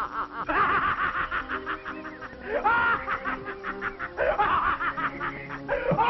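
A man laughing in long runs of quick, repeated bursts, three spells of it, over background music.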